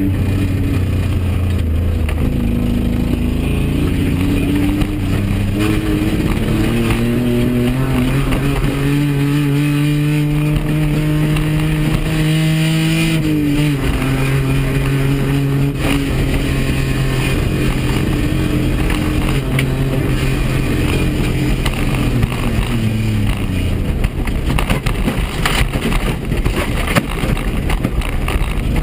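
Rally car engine heard from inside the cabin under hard acceleration on a dirt stage. The engine note climbs steadily through a long pull, drops at a gear change about halfway through, then holds steady before easing off near the end, over constant road noise.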